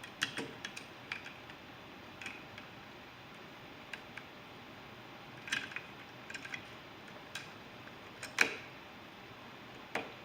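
Plastic Lego bricks clicking and tapping as they are handled and pressed together: irregular small clicks, some in quick clusters, the loudest about eight seconds in.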